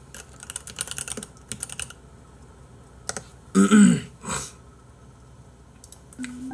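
Computer keyboard typing: a quick run of key clicks for about two seconds, then a few more clicks. A short throaty vocal sound comes a little past halfway and is the loudest moment.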